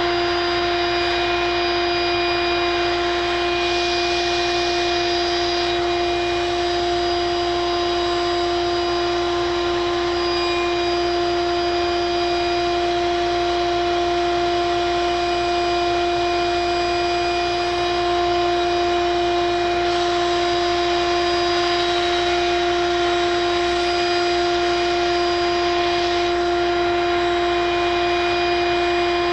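A vacuum's electric motor running steadily with a constant high hum, as used to suck live bees out of a hive.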